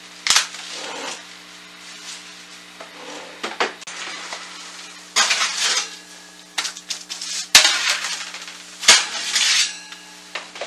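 Samsung electric range's oven door opening and metal cookie sheets sliding out over the oven racks with a scraping rattle, then sharp metallic clanks as the sheets are set down on the glass cooktop.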